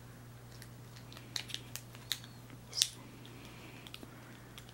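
Hard plastic parts of a smartphone vlogging kit being handled and fitted together: a few sharp clicks and light rattles in the middle, the loudest near the end of that run, over a steady low hum.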